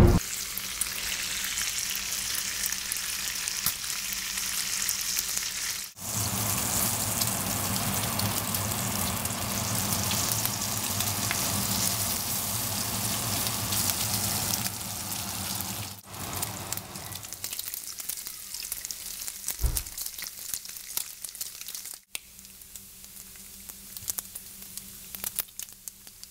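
Bacon strips frying on a griddle: a steady sizzle with fine crackling, which breaks off briefly a few times and grows quieter over the last several seconds.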